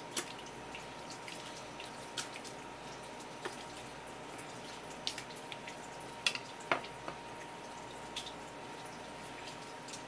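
Wet clicks and small slaps of a skinned bigfin reef squid mantle being handled and laid flat on a wet wooden cutting board, scattered irregularly through, over a steady faint hiss.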